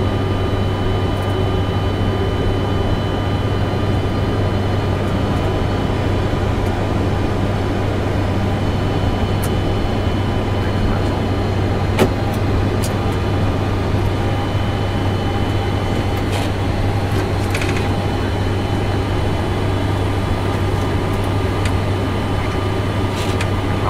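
Steady flight-deck noise of a Boeing 747-400 freighter with its engines running: a constant low hum with a few faint steady tones above it. A single sharp click comes about halfway through.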